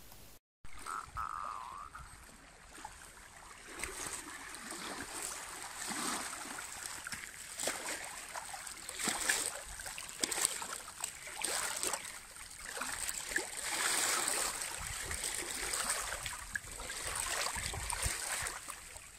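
Water splashing and trickling, with many small irregular crackles and splashes.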